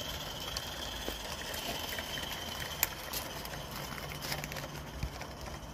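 Coal-fired Accucraft Ragleth live-steam garden-railway locomotive running with its train: a steady hiss of steam with scattered light clicks from the wheels on the track.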